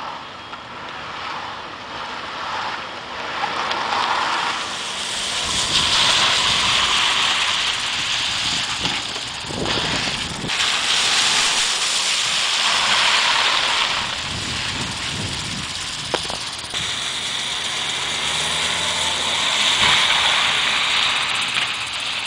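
Nissan Juke driving across a wet skid pad, its tyres swishing and hissing through standing water and spray. The hiss swells and eases several times as the car passes.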